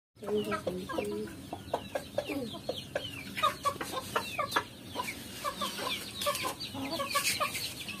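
A flock of free-range Nepali local chickens, hens and roosters, clucking in many short overlapping calls.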